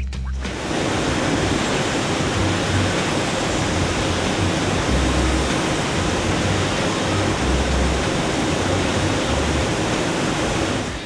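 Ski finishing machine grinding the steel edges and bases of skis, a loud, steady rushing hiss that starts abruptly and runs without a break.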